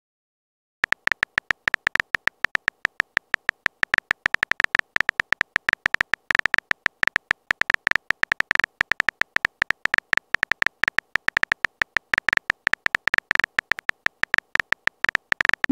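Smartphone keyboard typing sound effect: rapid, uneven key-tap clicks starting about a second in, with a short rising swoop at the very end as the message sends.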